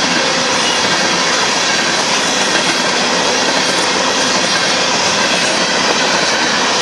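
Union Pacific covered hopper cars of a freight train rolling past: a steady, loud noise of steel wheels on rail.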